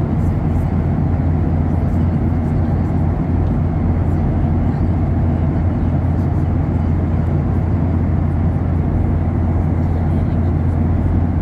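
Steady cabin drone of a Boeing 737-800 in cruise, heard at a window seat beside its CFM56-7B turbofan engine: a constant deep rumble of engine and airflow that does not change.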